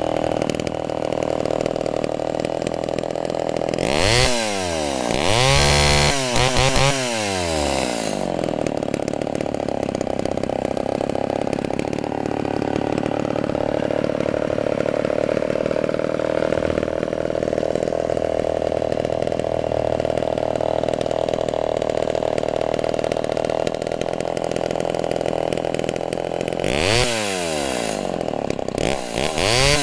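Homelite SXL12 chainsaw's two-stroke engine, with electronic ignition, idling steadily. It is revved up and back down twice about four seconds in, and twice more near the end.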